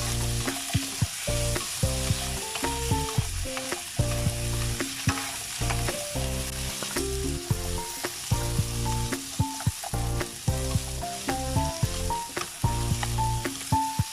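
Diced carrots, potatoes and red bell pepper frying in a little oil in a pan, with a steady sizzle and the scrape and clack of a spatula stirring them now and then.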